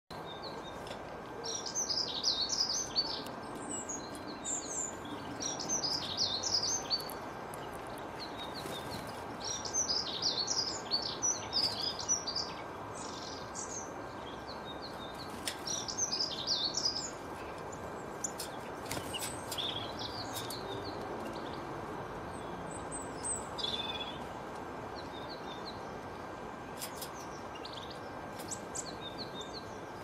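Small songbirds singing in high, rapid twittering phrases a second or two long, repeated every few seconds and thinning out in the second half, over steady background noise.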